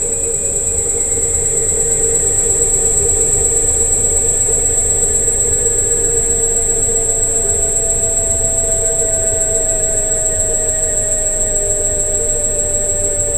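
Electric scooter riding: a steady high-pitched whine over a low rolling rumble, with a motor tone that slowly falls in pitch.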